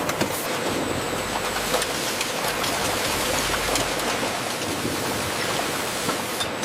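Steady factory production-line noise: an even rushing hiss with a faint hum under it and scattered light clicks and clinks.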